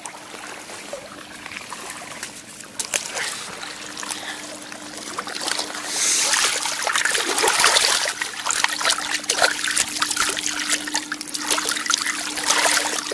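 Water trickling and splashing with scattered clicks and rustles as a freshly caught crucian carp is handled, busier and louder from about six seconds in. A faint steady hum runs underneath.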